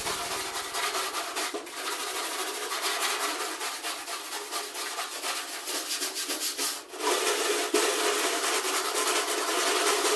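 Steady hand scrubbing on the sheet-metal of a fire-damaged toolbox, working soot and residue off the finish, with a short break about seven seconds in.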